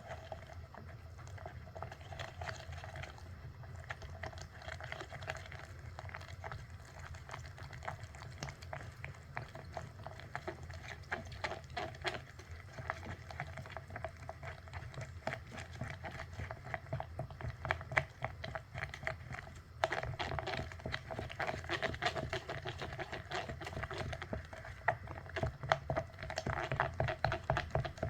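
Slime being squished, a dense run of small wet clicks and pops over a steady low hum, busier and louder from about two-thirds of the way in.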